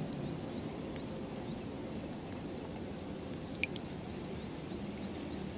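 A steady run of quick, evenly spaced high insect chirps over faint outdoor background noise, with a few soft clicks.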